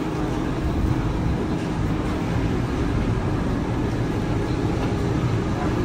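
Uber Boat river bus's engines running with a steady low drone and a steady hum.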